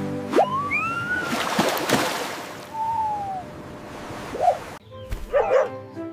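Red fox calls: whining, gliding cries and then a few short yelps near the end, over light background music, with a noisy rushing sound in the first couple of seconds.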